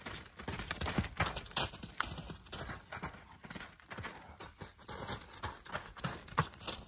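Hoofbeats of a horse cantering in a circle on loose dirt on a lunge line: a run of dull thuds, loudest when the horse passes close near the end.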